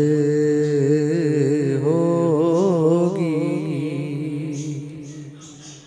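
A man singing a naat unaccompanied, holding and ornamenting a long vowel at the end of a line with a wavering pitch, the note fading out about four seconds in.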